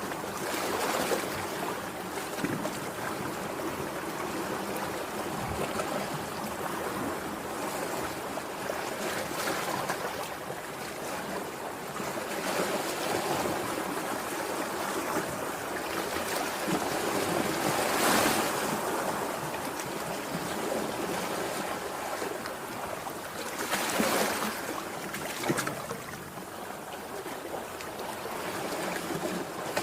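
Sea waves washing onto the shore as a steady rush. Louder breakers surge about eighteen and twenty-four seconds in.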